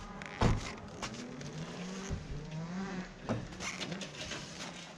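An engine revving, its pitch rising and falling, with thumps near the microphone from gear being handled at a trailer, the loudest about half a second in and another near three and a half seconds.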